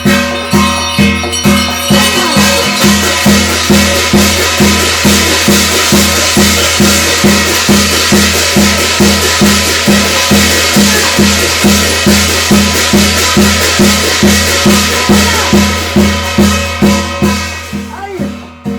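Korean shamanic ritual music: a drum beaten in a steady even rhythm, about two to three strokes a second, with a dense jingle of shaken bells over it from about two seconds in. The jingling drops away near the end.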